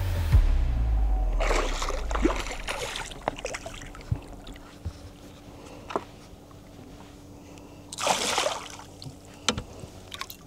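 Hooked zander splashing at the surface as it is played beside the boat, in two bouts: about a second and a half in, and again about eight seconds in. A few sharp clicks fall between the bouts, and a low hum dies away in the first second or so.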